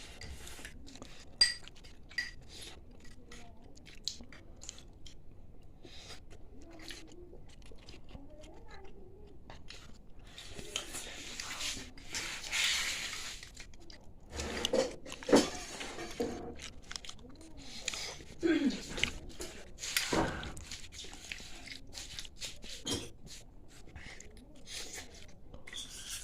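A person eating black rice: chewing and mouth sounds with scattered small clicks, and a few short vocal sounds in the middle.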